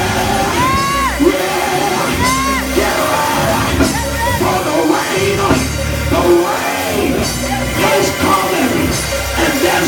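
Live church band music, drums and keyboards, playing a fast praise-break groove, with a few high rising-and-falling yells over it in the first half.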